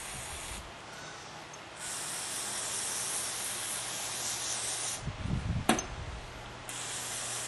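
An aerosol can of Gum Out carb and choke cleaner sprays through its red straw into a small-engine carburetor's holes and passages. It goes in three hissing bursts: a short one at the start, a long one of about three seconds, and another near the end. Between the last two come a few low handling knocks and one sharp click.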